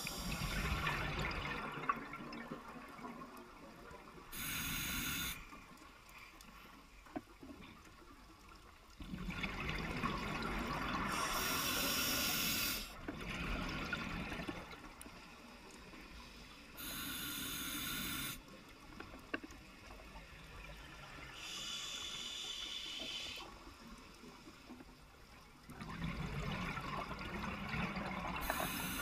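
Scuba diver breathing through a regulator: short hissing inhalations alternate with longer bubbling exhalations, a breath about every five to six seconds.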